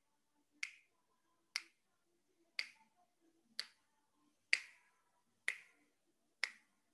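Finger snaps at a steady pace of about one a second, seven in all, keeping time during a hypopressive breath-hold.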